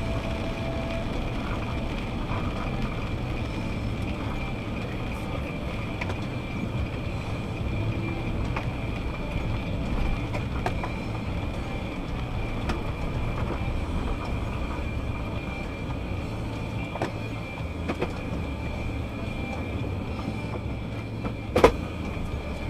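Car driving on wet roads, heard inside the cabin: a steady low rumble of engine and tyres under a faint steady high whine, with scattered light ticks and one sharp click near the end.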